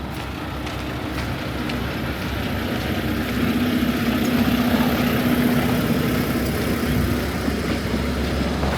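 An engine running with a steady low hum, growing louder over the first half and then holding.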